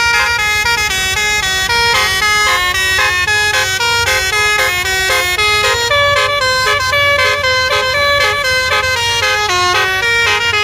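Basuri musical bus horn ("telolet") playing a quick melody of stepped horn notes, over a low steady rumble.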